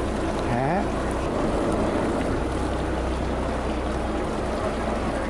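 Fishing boat's engine running with a steady low hum under an even hiss of wind and water; a short snatch of a voice about half a second in.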